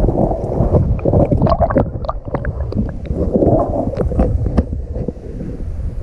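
River water heard through a submerged camera: a loud, low, muffled rush of current, with many small sharp clicks and ticks scattered through it.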